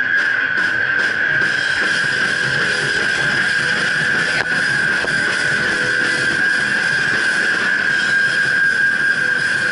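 Loud, noisy distorted electric guitar music, with a steady high-pitched tone held through it.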